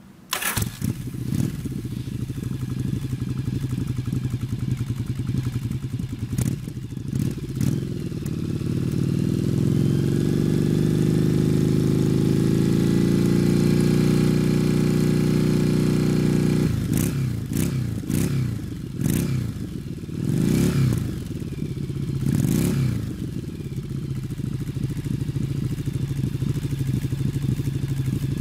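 Yamaha Virago V-twin motorcycle with a fishtail muffler and flex pipe firing up and idling. Its revs climb slowly and are held up for several seconds, then drop back. About five quick throttle blips follow, and it settles back to idle.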